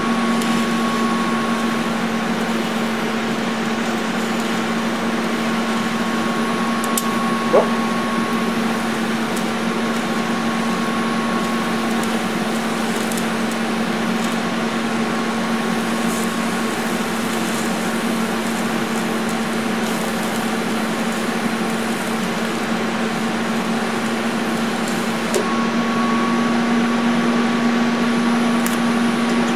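TIG welding arc from a Lincoln Square Wave TIG 200 buzzing steadily over an even hiss while filler rod is laid into a deep V-groove. The buzz grows a little louder in the last few seconds.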